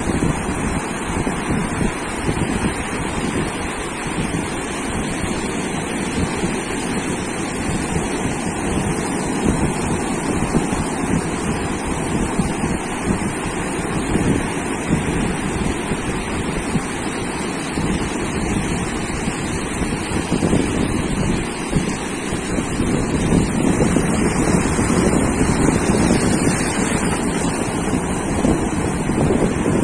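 Sea surf washing onto a sandy beach, a continuous rush with wind buffeting the microphone; the surf grows louder about three-quarters of the way through.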